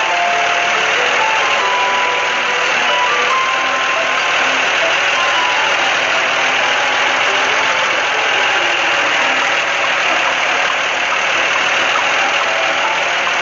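Steady engine-like machine noise of a cartoon construction vehicle at work, running without a break, with short pitched notes of background music faintly over it.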